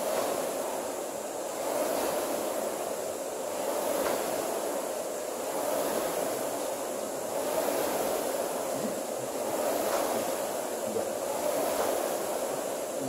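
Rowing machine's flywheel whooshing with each stroke, swelling and fading about once every two seconds at a steady pace.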